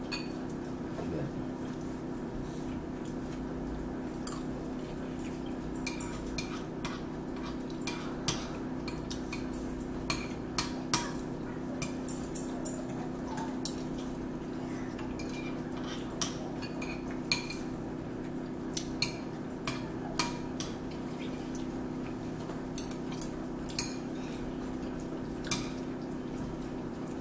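Forks and spoons clinking and scraping against plates and bowls during a meal: many short, sharp clicks at irregular intervals over a steady low hum.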